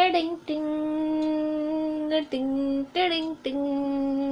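A voice singing slow, long held notes, each drawn out for a second or more at a steady pitch, with short breaks between them.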